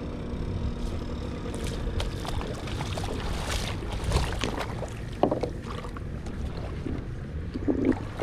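Wind rumbling on the microphone, with splashy steps wading through shallow water and scattered knocks and rattles as a fishing kayak and its gear are handled and boarded.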